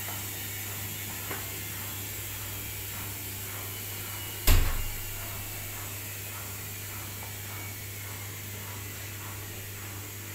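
Bosch WAE20462TR front-loading washing machine running its final spin with a steady low hum and hiss. A single loud thump comes about four and a half seconds in.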